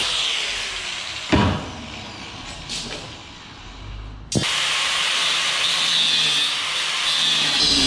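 Angle grinder cutting steel rebar: the grinder winds down, a sharp metal clank comes about a second in as the bar is handled, and about four seconds in the grinder is switched on again and runs steadily at a high whine.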